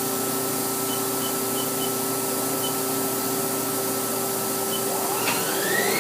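Haas SL-20T CNC lathe's spindle and 20 hp vector drive running with a steady hum at 500 RPM, with a few short high beeps in the first half. About five seconds in, a whine starts and rises quickly in pitch as the spindle speeds up toward 2500 RPM.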